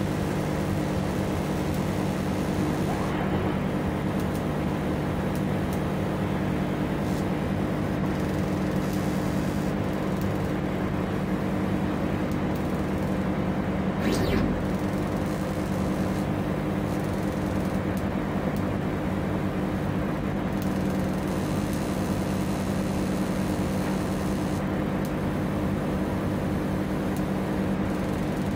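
20W fiber laser engraver running while it marks a stainless steel knob: a steady machine hum with a high hiss that comes and goes in stretches. About halfway through there is a brief louder sound, as the marking pauses and the rotary chuck turns the knob.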